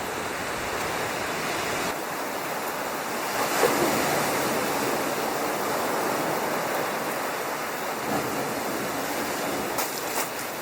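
Sea surf washing on a beach, a steady rush of water that swells about three and a half seconds in and slowly eases.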